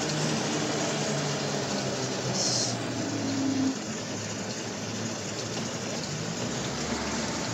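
Tyres hissing steadily on a wet, slushy road as an electric quadricycle rides along, heard from inside its plastic-panelled cabin, with a low steady hum underneath.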